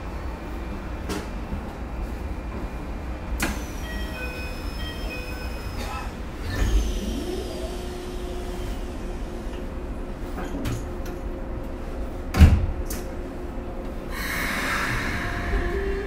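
Inside a Keikyu 1000-series electric train standing still: the steady background of the car, a few sharp knocks and clunks, a loud thud about twelve seconds in, and a rush of air near the end.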